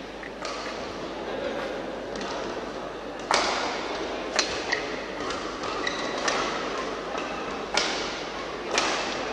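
Badminton rally in a large hall: sharp cracks of rackets striking the shuttlecock, about six from about three seconds in, a second or so apart, over a steady murmur of spectators.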